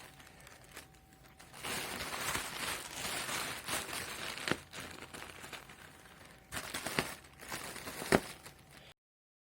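Cats at play, making irregular rustling and crinkling with a few sharp taps, the loudest about eight seconds in; the sound cuts off suddenly near the end.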